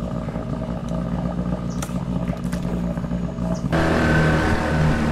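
1987 8 hp Evinrude two-stroke outboard running steadily at low throttle, then opened up and getting louder about three and a half seconds in as the jon boat gets under way.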